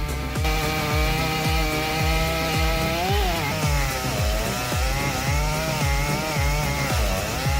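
Stihl MS 881 chainsaw, a 121.6 cc two-stroke, running near full throttle while cutting wood; its pitch sags and recovers under load about three seconds in and again near the end. Background music with a steady beat of about two thumps a second plays underneath.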